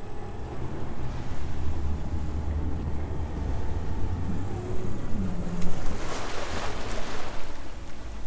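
Low steady rumble of the fishing boat's outboard motors at slow speed, mixed with wind on the microphone. About six seconds in, a rush of churned water washes along the hull.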